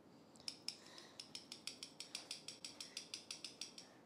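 Homemade finger castanets made of two metal bottle caps on a cardboard holder, snapped together in a fast, even run of faint clicks that starts about half a second in.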